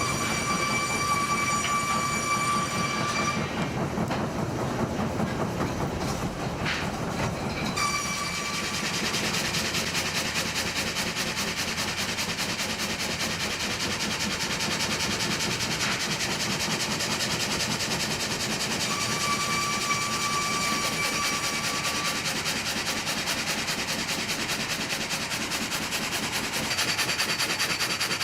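Heavy machinery clattering steadily, with a steady high whine that comes in for the first few seconds and again around twenty seconds in.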